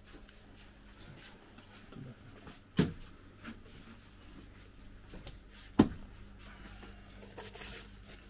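Handfuls of wet clay thrown into a glass terrarium: two loud wet slaps about three seconds apart, with a few fainter dabs and knocks between them.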